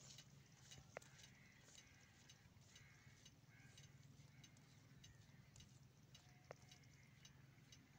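Near silence: faint, evenly spaced clicks about twice a second over a low steady hum, with two brief high chirps, one about a second in and one later.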